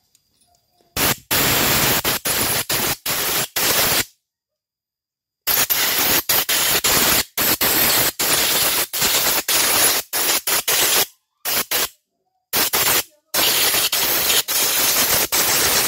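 Compressed-air blow gun blasting air through a disassembled motorcycle carburetor in a series of short, loud hissing bursts with brief pauses between them, beginning about a second in. The air is blowing out the carburetor body and jets, which were clogged by water mixed into the fuel.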